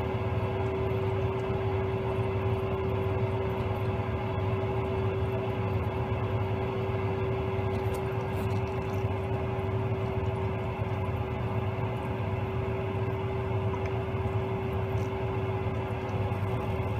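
Gas boiler running: a steady mechanical hum with one constant mid-pitched tone over a low drone.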